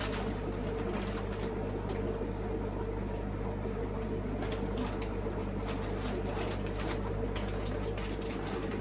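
Steady electric hum of a fish-tank pump, with scattered faint clicks and small splashes of water.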